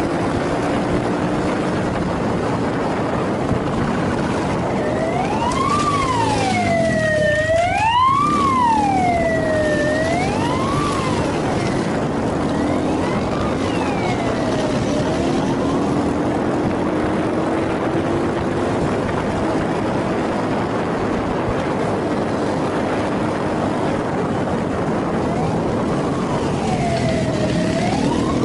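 Motorcycle engine running with steady wind rush on a helmet-mounted microphone, while a police siren wails, rising and falling. The siren is loudest about a fifth of the way in, fades, and comes back near the end.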